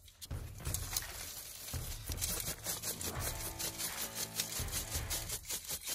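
Charcoal lumps and wood ash being shaken in a metal mesh sieve: a rhythmic rattling and scraping of charcoal against the mesh, a few shakes a second, as fine ash sifts through into a plastic tub.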